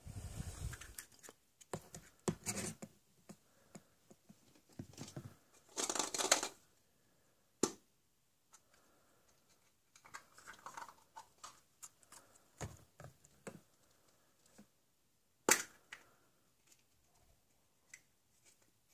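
Plastic surprise eggs being pulled apart and snapped open, and small plastic toys handled over a bin of eggs: scattered clicks, scrapes and short rustles.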